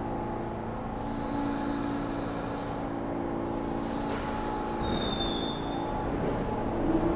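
Subway train standing at the platform with a steady hum, a hiss from about a second in and a brief high squeal; near the end it starts to pull out, its motor whine rising in pitch as it picks up speed.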